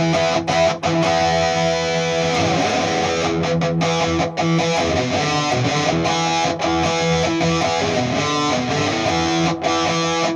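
Electric guitar playing strummed chords that ring out between strokes, with a few brief breaks between chords.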